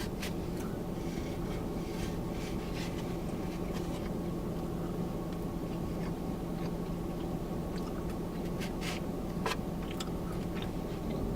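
Quiet eating of a last bite: soft chewing and mouth clicks with a few light scratchy rustles, over a steady low hum.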